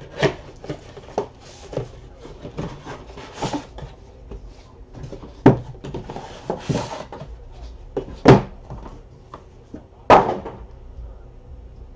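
Cardboard trading-card box being handled and set about on a table: scattered light knocks and clicks, several sharper knocks spread through, and a couple of brief rustles of cardboard sliding.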